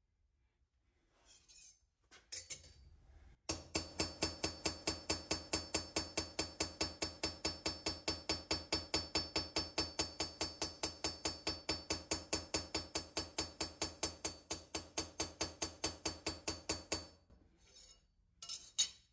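Carbide straightening hammer tapping a warped, hardened Magnacut steel chef's knife blade on a small anvil to straighten it: a rapid, even run of light ringing taps, about five a second, starting a few seconds in and stopping shortly before the end. A few short clinks of handling come before and after it.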